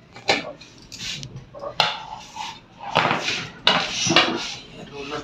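Sheet-metal chassis of an opened lamination machine clattering and knocking on a wooden bench as it is tilted, handled and set down: a run of sharp metallic rattles, loudest about three to four seconds in.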